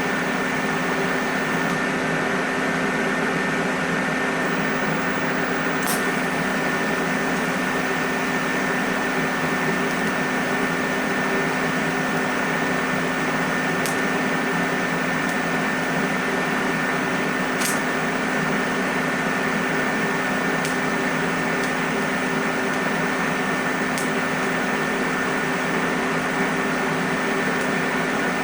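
Steady machine hum with hiss and a few fixed tones, broken by about five sharp ticks spread through it.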